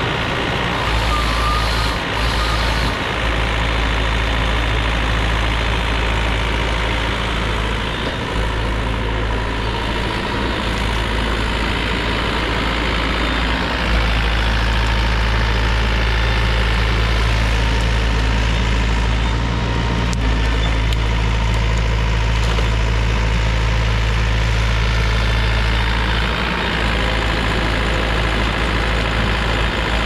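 Heavy machine's engine running steadily at a constant speed, with a strong low drone throughout.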